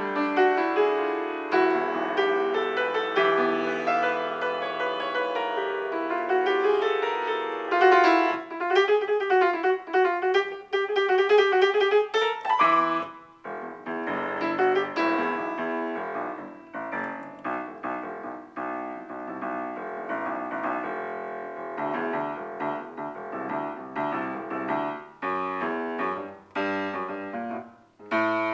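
Solo piano-sound keyboard improvisation: held chords whose pitch wavers and bends in the middle, then quicker, detached notes through the second half.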